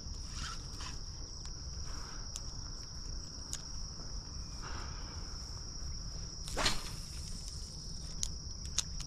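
Steady high-pitched trilling of insects such as crickets, with one brief louder knock about two-thirds of the way through and a few faint ticks near the end.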